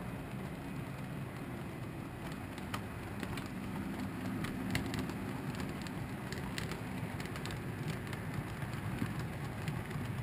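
HO scale model freight train rolling past: a steady low rumble from the train on the track, with rapid, irregular clicking of the wheels over the rails from about two seconds in.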